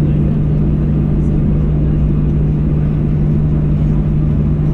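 Cabin noise of a Boeing 737-800 taxiing, its CFM56 engines at idle: a steady low hum over an even rumble.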